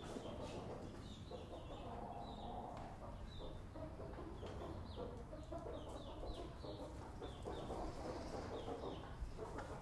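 Chickens in a barn clucking and making short, high cheeping calls over and over, several birds at once, over a steady low background hum.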